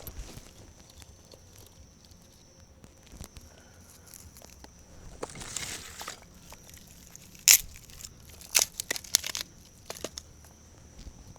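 Thin dry sticks and wood shavings being handled and laid around a candle flame to build a campfire: a rustle, then a few sharp wooden clacks and knocks about halfway through.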